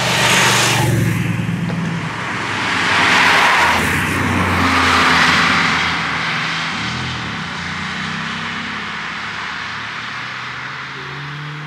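Moto Guzzi V85TT's V-twin motorcycle engine and tyres passing close by, rising to a peak about a second in, followed by two further rising-and-falling vehicle pass-by swells a few seconds later.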